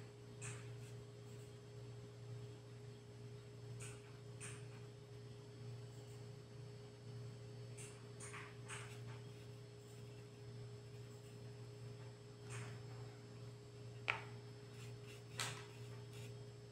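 Faint scratchy strokes of a flat paintbrush on fabric over a steady low hum, with two sharp clicks near the end as a small paint pot is set down on the stone counter.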